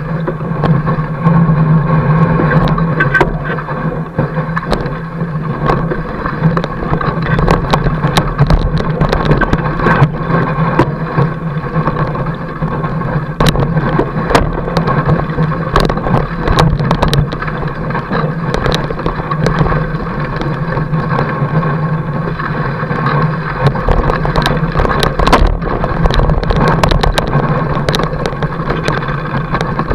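Fat bike tyre rolling over packed snow: a steady, loud drone from the tread, with many sharp clicks and rattles scattered through it.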